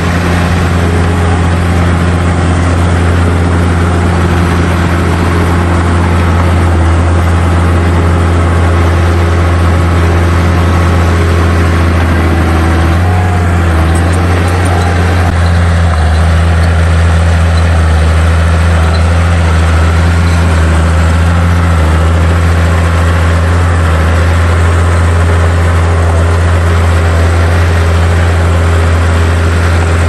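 Small crawler bulldozer's diesel engine running steadily under load as it pushes soil, a low, even drone that wavers briefly about halfway through.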